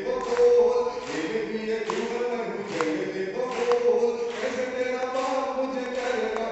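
A man singing lines of verse in a drawn-out, chant-like melody into a microphone, amplified over the hall's sound system.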